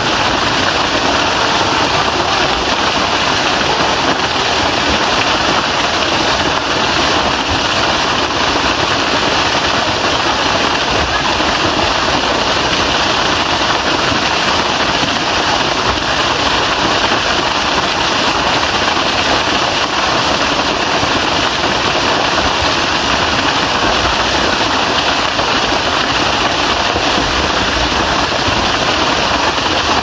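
Waterfall pouring steadily into a rock pool, a constant loud rush of falling water.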